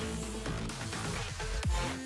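Background music with a steady electronic beat, about two beats a second.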